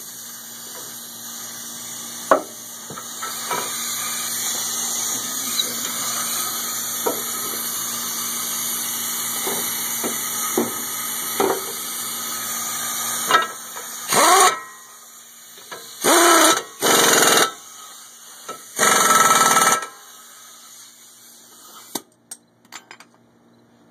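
Pneumatic impact wrench tightening the brake caliper bracket bolts: a long steady hiss of air with scattered clicks, then four short loud bursts of the wrench running between about 14 and 20 seconds in.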